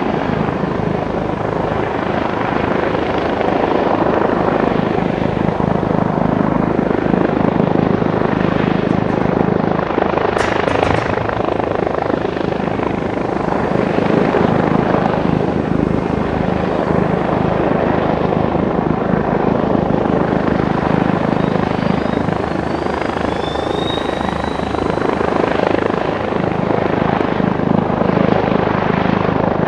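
Boeing CH-47 Chinook tandem-rotor helicopter flying low and close, its twin rotors and turboshaft engines making a loud, steady din throughout.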